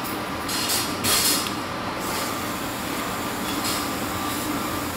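Steady mechanical hum of room ventilation. Two brief hissing rustles come about half a second and a second in, as rice is scooped and eaten from a styrofoam takeout box with a plastic fork.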